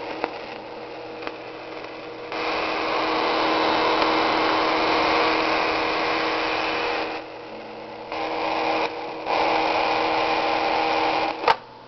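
Circuit-bent circuit board playing through a speaker: a static-like noise over a steady drone, jumping abruptly between louder and quieter states several times as the circuit is touched, then cutting off with a click near the end.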